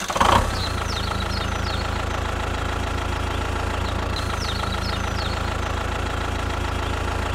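Engine idling steadily with a low, rapid throb, starting abruptly just after the beginning and cutting off at the end. Short bird chirps are heard twice over it.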